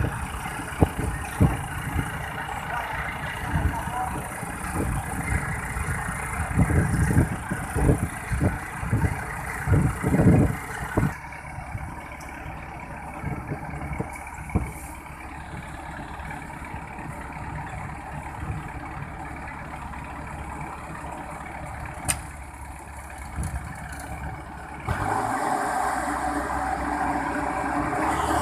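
Heavy diesel machinery running, with irregular loud low knocks and thumps for the first ten seconds or so, then a steadier, quieter engine note that grows louder again near the end.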